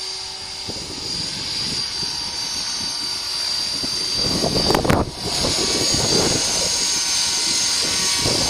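Electric Align T-Rex RC helicopter in flight, its motor and rotors giving a steady high-pitched whine. Gusty wind buffets the microphone, growing heavier about halfway through.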